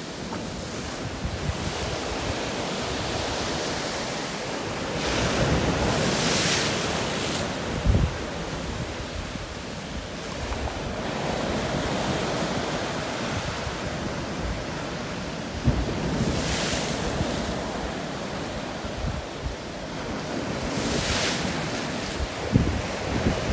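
Sea waves breaking and washing over rocks, with three louder surges of surf. Wind buffets the microphone in a few short, low thumps.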